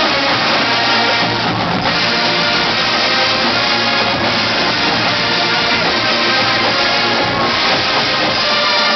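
A marching band playing a rock arrangement at full volume: massed brass holding chords over marching drums.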